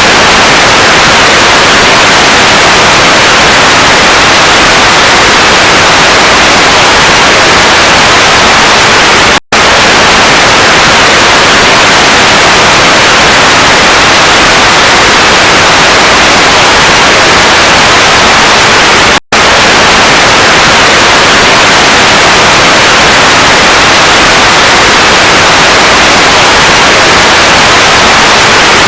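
Loud, steady static hiss, like an untuned TV or radio. It drops out for an instant twice, about ten seconds apart.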